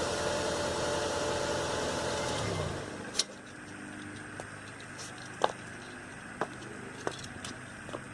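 A car engine idling, with the 12 V tire pump running off it, is switched off. The steady hum and whine wind down with a falling pitch and stop about two and a half seconds in. After that there are only a few faint clicks.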